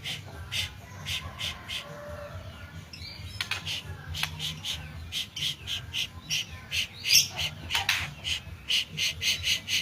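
White-rumped shama singing a fast string of short, sharp repeated notes, about three a second, with a longer falling note near the end, over a faint steady low hum.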